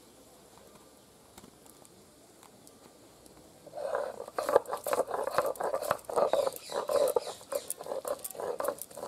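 Ginger being ground on a sil-nora, a grooved stone slab worked with a stone roller. After a faint first few seconds, rhythmic scraping and grating strokes begin about four seconds in, at roughly two strokes a second.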